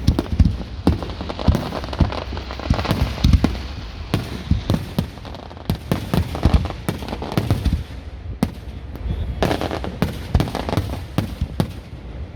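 Fireworks display: a continuous barrage of aerial shells bursting, many bangs in quick, irregular succession and overlapping.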